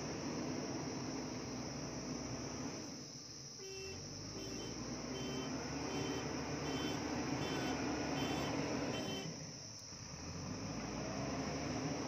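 JCB backhoe loader's diesel engine running as the machine manoeuvres, with its warning beeper sounding about twice a second for several seconds in the middle. Crickets chirp steadily in the background.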